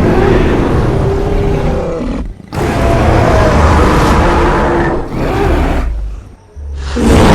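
Loud creature roar sound effects of the gorilla or movie-monster kind: one long roar that breaks off about two seconds in, a second long roar, a shorter one about five seconds in, and another starting near the end.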